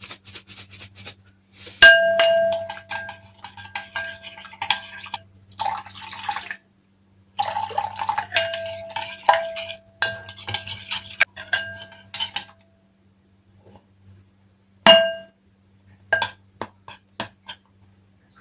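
Kitchen dishes and utensils clinking: two runs of rapid taps on one ringing piece of crockery or metal, then a single louder clink about 15 seconds in and a few lighter ones after it. A faint low hum sits under the runs.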